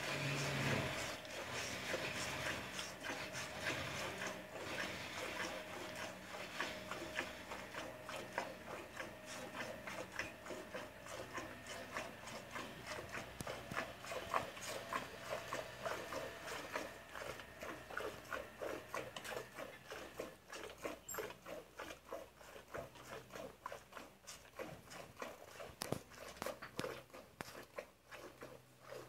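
Cow being milked by hand into a metal pot: a steady rhythm of short squirts of milk hitting the milk already in the pot.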